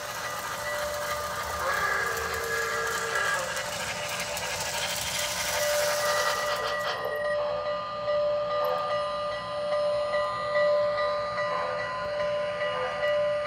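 MTH Rail King O-gauge steam locomotive's onboard sound system, heard through its small speaker. It plays a steady steam hiss with a short steam-whistle blast about two seconds in. The hiss cuts off suddenly about seven seconds in, leaving the locomotive running along the track with a steady whine.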